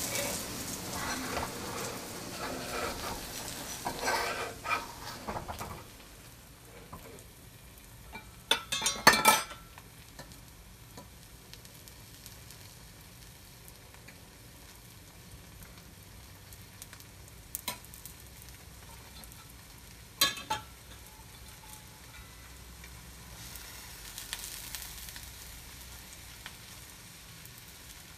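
Food sizzling and frying in a hot pan, loud and crackling for the first few seconds, then settling to a quieter steady sizzle. A short clatter of utensil knocks against the pan comes about nine seconds in, the loudest moment, with single knocks later.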